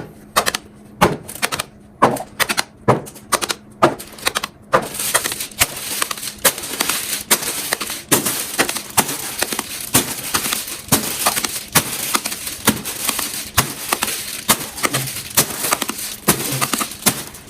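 Plastic fidget toy being clicked repeatedly, sharp clicks about three a second. From about five seconds in a steady hiss joins them and the clicking grows denser.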